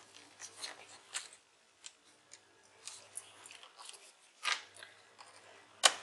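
Scattered small clicks and ticks of fingers pressing a cable into its routing groove on an opened laptop's plastic chassis, with two sharper clicks about four and a half seconds in and near the end.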